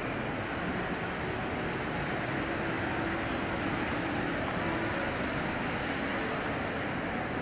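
Steady ambience of a large indoor atrium: an illuminated fountain's jets splashing into its pool, blended with a distant murmur of people.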